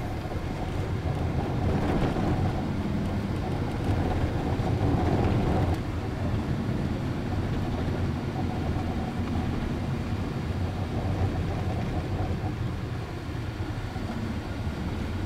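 Car driving on a gravel road, heard from inside the cabin: a steady low rumble of engine and tyres, easing slightly about six seconds in.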